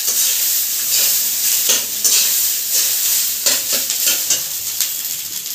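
Rice stir-frying in a metal kadai: a steady sizzle, with a metal spatula scraping and knocking against the pan again and again as it is stirred.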